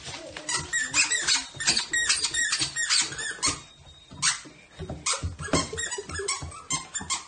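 Plush squeaky toy squeaking over and over in a dog's mouth, short high squeaks several a second in irregular runs.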